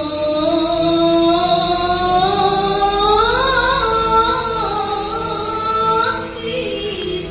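A woman singing one long, slowly rising ornamented line that peaks midway and eases down near the end, over a steady held note in the accompaniment.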